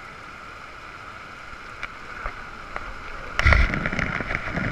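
Steady heavy rain falling on a tent canopy, a continuous hiss. About three and a half seconds in, louder knocks and rustling with a low rumble come in.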